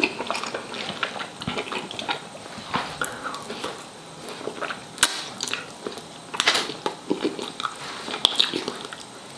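Close-miked eating of chicken wings: biting into the meat and chewing, with irregular wet mouth smacks, and fingers being sucked clean of sauce.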